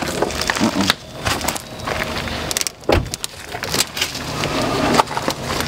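Scattered knocks and clicks from hands working on car parts, with one sharper knock about three seconds in, over a faint steady low hum.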